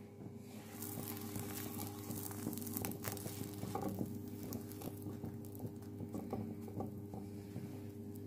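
Burger heating in a frying pan with a soft, crackly sizzle that starts about a second in, while a metal spoon presses and scrapes on the bun and pan, over a steady low hum.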